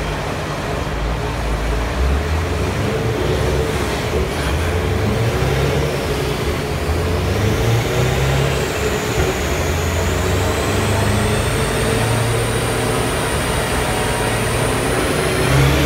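Twin-turbocharged V8 of a 2008 Corvette idling steadily on a chassis dyno with a deep, uneven rumble. A faint high whine rises a few seconds in and then holds.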